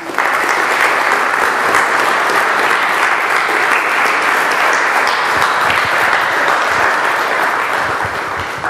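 Audience applauding, starting all at once and holding steady, then thinning out near the end.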